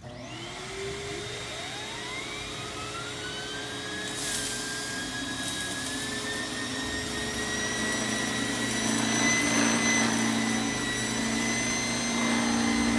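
Central vacuum switched on, its motor whining up in pitch over the first couple of seconds and then running steadily, with an air-driven turbo carpet head spinning on the hose.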